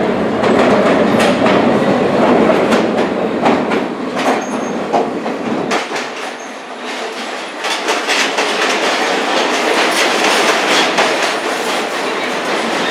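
New York City subway train running along the track at a station, its wheels clattering over rail joints in a quick run of sharp clicks. The deep rumble drops away about halfway through while the clicking carries on.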